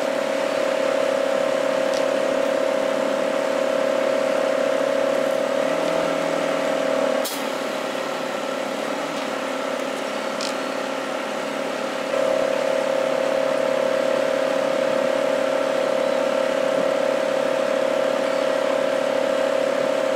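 Semi truck running with a steady whine that drops for about five seconds partway through, with a sharp click where it drops and a few faint ticks.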